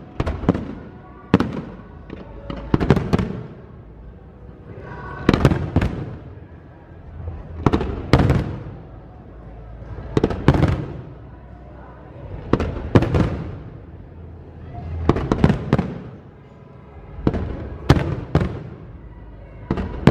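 Fireworks display: aerial shells bursting with sharp bangs about every two to three seconds, each bang followed by a fading rumbling echo.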